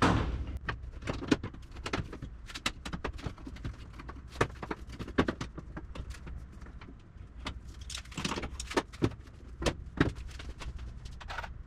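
Irregular light clicks and clanks of a steel landing-gear weldment being worked into place against an aluminum airframe, over a low steady hum.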